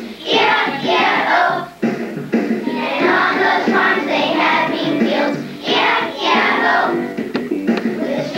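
A group of children singing a song together, with musical accompaniment.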